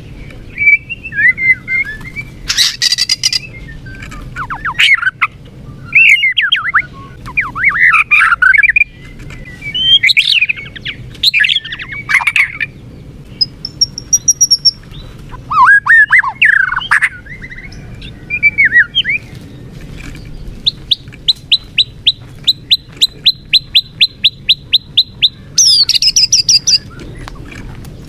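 White-rumped shama singing a varied song of whistled phrases and harsh notes, ending in a long run of rapid, evenly repeated notes, about five a second, followed by a few harsh calls.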